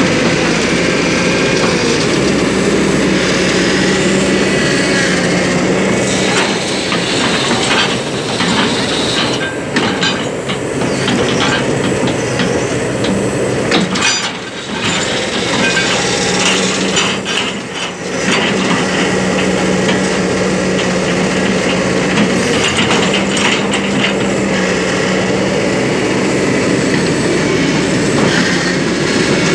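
Kobelco SK200-8 hydraulic excavator's diesel engine running steadily, with its steel tracks clanking and squealing as the machine moves. The sound drops briefly twice, about halfway through.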